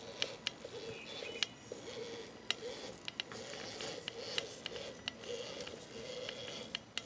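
Electric motor and gears of a radio-controlled scale rock crawler whining at low speed, the pitch wavering up and down with the throttle, with scattered sharp clicks as it crawls over rocks.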